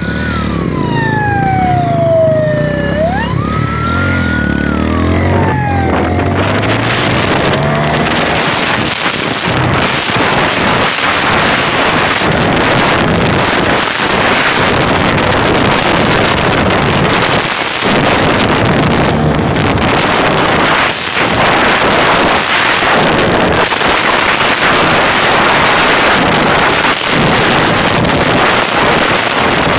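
A police siren wails, its pitch falling slowly and then sweeping back up, over a motorcycle engine for the first several seconds. Then loud wind buffeting on the microphone drowns everything as the motorcycle rides fast.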